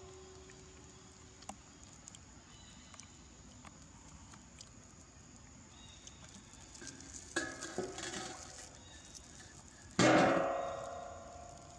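Large stainless-steel basin being knocked: a few light clanks about seven and a half seconds in, then a loud clang near the end that rings and fades over about a second and a half.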